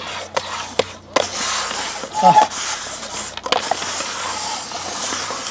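Small cups being shuffled and set down on a table in a shell game, a few light knocks spread over the first three and a half seconds, over a steady background hiss.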